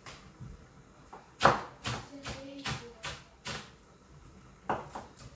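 Knife chopping leafy greens on a wooden chopping board: a run of six even chops, about two and a half a second, the first the loudest, then one more chop near the end.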